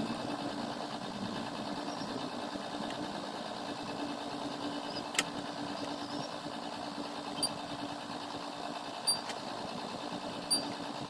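Xbox 360 Slim running after its disc drive was replaced: a steady mechanical whir from the drive and cooling fan, with a few short sharp clicks in the second half.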